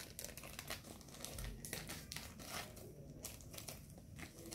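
Faint crinkling of a plastic sugar packet being handled, with scattered light crackles and clicks.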